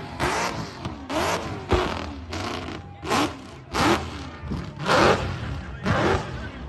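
A burnout car's engine revving hard while it spins its rear tyres, the revs surging and dropping about twice a second.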